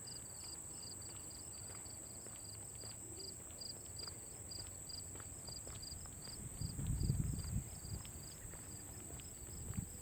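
Evening insect chorus: a steady high drone with an even chirping pulse about three or four times a second over it. A brief low rumble comes about seven seconds in.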